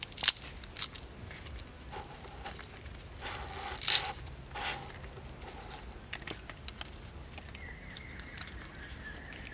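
Hands peeling and breaking fresh lemongrass stalks: scattered crisp snaps and short tearing, crunching rustles, the loudest about four seconds in.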